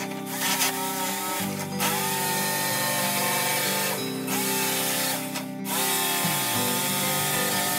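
Jigsaw running as it cuts through a wooden board, stopping briefly three times (about one and a half, four and five and a half seconds in), over background music.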